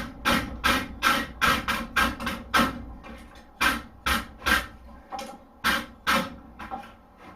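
Blacksmith's hammer striking hot steel on an anvil, about two ringing blows a second at an uneven pace, while the horseshoe is forged into a hoof pick.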